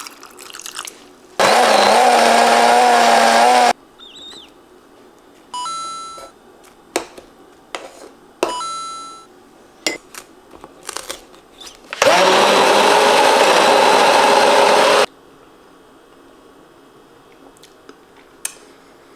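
Countertop blender running in two bursts, about two seconds and then about three seconds long, blending a shake made with water. Short beeps and clicks come between the bursts.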